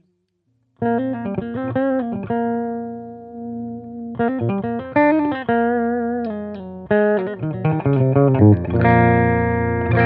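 Electric guitar with a Seymour Duncan Invader bridge humbucker, played through an EL34 valve amp and 12-inch speaker cabinet. After a moment of silence it plays a phrase of picked notes, short runs and held notes, then a fuller chord rings on near the end.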